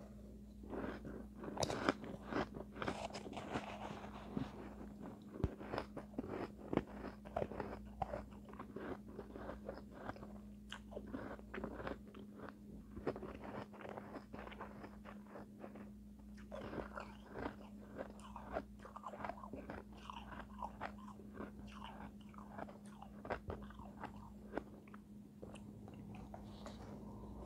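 Shaved ice being crunched and chewed mouthful after mouthful: a dense, irregular run of crisp crunches.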